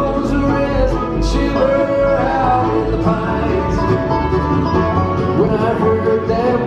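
Bluegrass string band playing live, with fiddle, mandolin, five-string banjo, upright bass and acoustic guitar together in a steady, driving rhythm.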